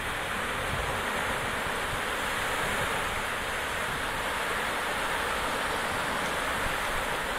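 Small Baltic Sea waves breaking and washing onto a sandy beach, a steady hiss of surf, with low wind rumble on the microphone.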